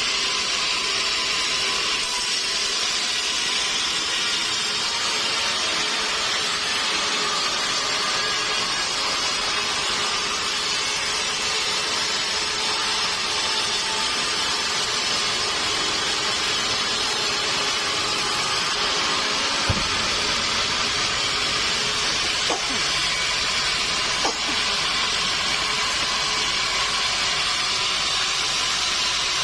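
A sawmill saw running steadily through a mahogany log, giving a constant hissing noise, with a few brief knocks about two-thirds of the way in.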